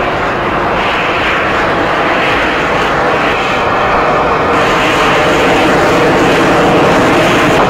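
The twin Pratt & Whitney F119 turbofan engines of a USAF F-22 Raptor give a loud, steady jet roar as the fighter flies overhead. The roar grows slowly louder toward the end.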